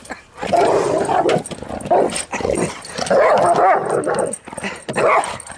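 Pet dog barking and whining excitedly in rough play, in several short bursts with brief gaps between them.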